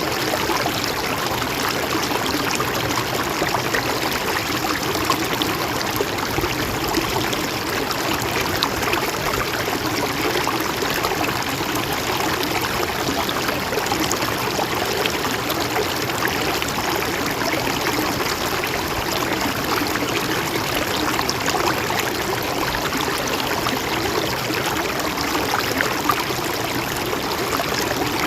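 A mountain stream running steadily over rocks, with a continuous trickling and burbling of water.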